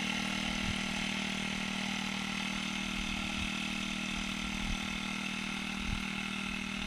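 Honda-type four-stroke petrol engine of a Kawashima backpack power sprayer running steadily at a constant speed while spraying, with low sound and vibration.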